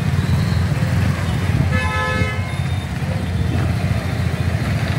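Suzuki V-Strom SX's single-cylinder four-stroke engine and exhaust running at low revs as the bike rides slowly, a steady low note. A vehicle horn toots briefly about two seconds in.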